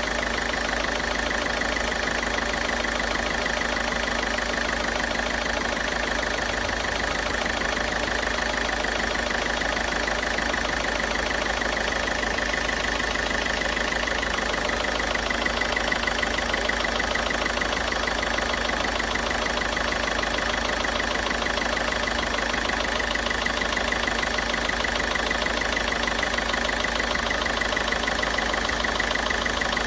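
Ford Figo's turbocharged engine idling steadily during a carbon-cleaning treatment fed into its air intake.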